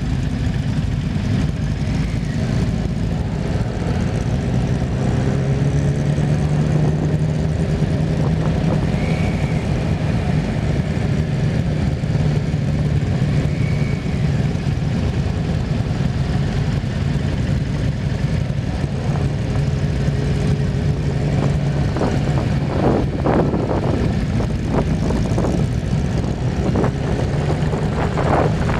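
Steady rumbling vehicle and wind noise. A low, even hum runs from about five seconds in to about twenty-two seconds, and a run of knocks comes near the end.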